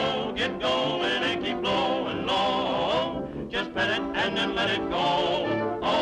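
Music: the jazzy song goes on with a wavering, vibrato-laden melody over band accompaniment.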